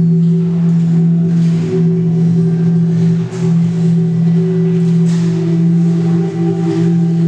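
A sustained low drone of several held tones, the upper one shifting lower about six seconds in, with soft washes of hiss coming roughly every two seconds.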